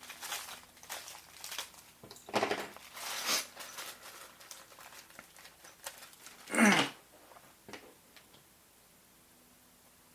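Rustling and crinkling of objects being handled on a work surface, in several separate bursts, the loudest about two-thirds of the way through.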